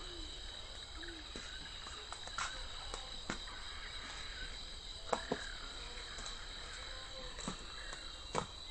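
Steady high-pitched insect chorus, with scattered sharp clicks and a few short low calls.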